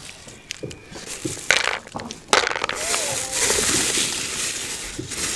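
Raw shelled groundnuts clicking and rattling as they are scooped by hand from a plastic bag into a plastic basin, with the bag rustling; scattered clicks at first, then a dense continuous rattle from about two seconds in.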